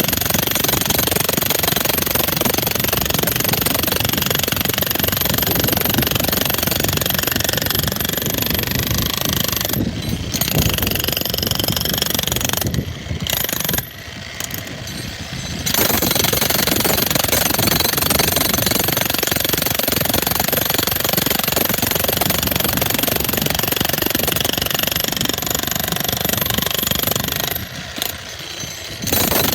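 Bauer 35-pound electric demolition hammer hammering continuously as it breaks up a concrete slab. It stops briefly about ten seconds in, pauses for about three seconds near the middle, and stops again shortly before the end.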